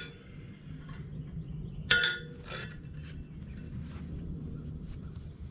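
A steel part clinks once with a short metallic ring about two seconds in, followed by a lighter click: loose metal parts being handled while a Caterpillar No. 29 cable control unit is taken apart.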